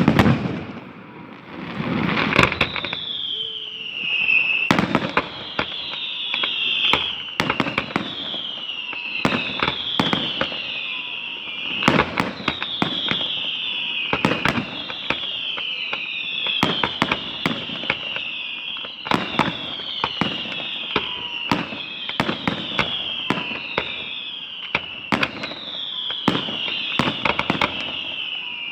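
Fireworks display: a long run of whistles, each gliding down in pitch, about one every second and a half, mixed with many sharp bangs and crackles.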